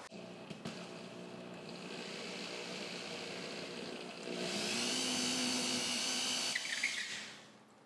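Cordless drill with a twist bit boring a hole into a wall: a steady motor whine that speeds up, rising in pitch and getting louder, about four seconds in, then winds down near the end.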